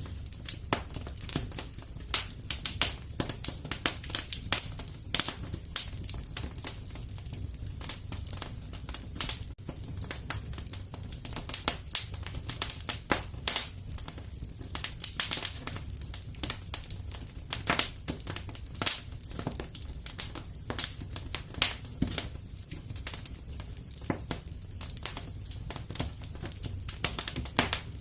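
Wood fire crackling in a fireplace: irregular sharp pops and snaps, several a second, over a steady low rumble.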